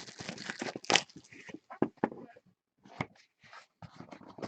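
A retail box of football trading cards being torn open and its packs handled: irregular tearing, crinkling and clicks of cardboard and wrapper, with a sharp tear about a second in.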